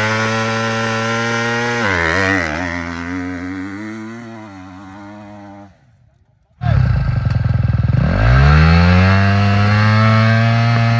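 Factory KTM 250 SX-F single-cylinder four-stroke motocross engine held at high revs for a practice start, then launched: the note drops and wavers as the clutch is let out and fades as the bike pulls away up the track. After a short break the revs climb again and hold steady for the next start, dipping briefly near the end.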